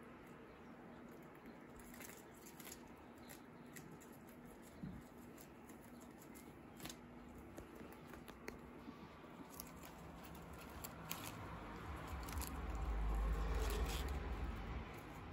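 Guinea pigs chewing and tearing crisp lettuce leaves: faint, quick, irregular crunches. A low rumble swells near the end.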